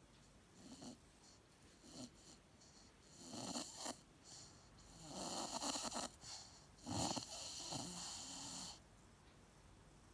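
Staffordshire bull terrier puppy barking and huffing in its sleep while dreaming: a string of separate snore-like breaths and quiet woofs, louder and longer in the second half.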